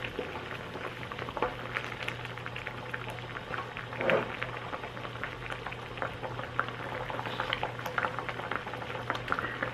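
Pot of Korean army base stew (budae jjigae) boiling, a steady crackle of small bubbles popping, with a wooden spoon scooping through it once about four seconds in.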